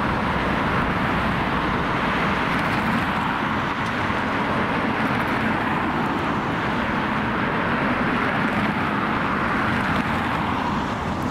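Boeing 737 airliner on final approach, heard from a distance as a steady rushing jet noise.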